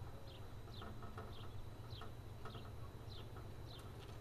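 Faint bird chirping: a short, high, falling peep repeated at an even pace, about one every two-thirds of a second, over a low steady hum.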